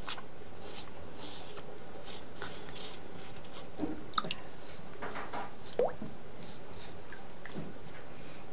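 A toothbrush scrubbing a wet hedgehog's quills in shallow sink water: short, irregular brushing strokes with small drips and splashes, and one brief squeak about two-thirds of the way through.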